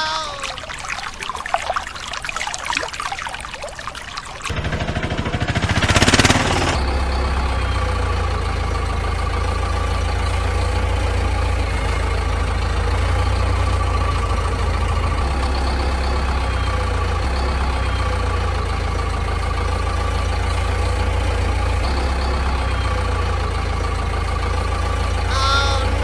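Water splashing and trickling in a plastic tub for the first few seconds. After a short louder burst, a heavy diesel engine sound runs steadily at idle for the rest.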